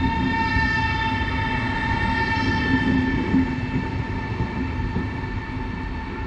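An ED250 Pendolino electric multiple unit pulling out of the station, with a steady electric whine from its traction equipment over the rumble and clatter of its wheels. The sound eases off slightly in the last couple of seconds.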